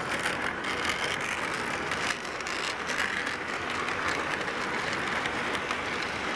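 HO scale model freight train running past on its track: a steady rattling whirr of the locomotive's motor and rolling wheels, with many small rapid clicks.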